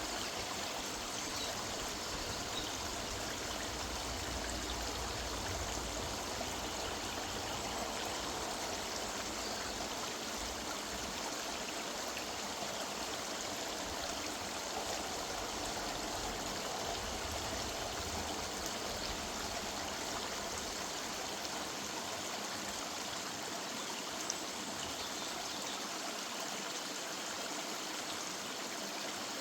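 A river's running water: a steady rushing and trickling flow.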